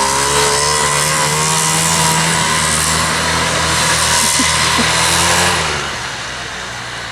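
1970 Moto Ski Grand Prix snowmobile's 340cc Sachs single-cylinder two-stroke engine running, its pitch wavering slightly. About three quarters of the way through the sound drops off and fades.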